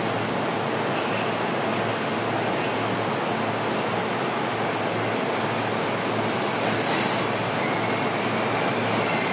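Steady rumble and hiss of an E233-1000 series electric train standing at a station platform, with a steady low hum under it and a faint high squeal near the end.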